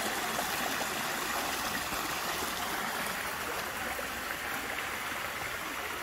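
Shallow creek running over rocks: a steady rush of flowing water.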